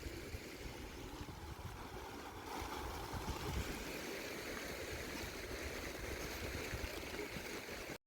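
Faint outdoor ambience: a steady rushing noise like running water or wind, with a low rumble on the microphone. It cuts off abruptly near the end.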